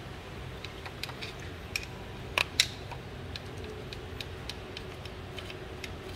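Screwdriver clicking and tapping against the metal of an automatic gearbox's exposed valve body: a scatter of sharp, light clicks, with two louder ones about two and a half seconds in, over a steady low background hum.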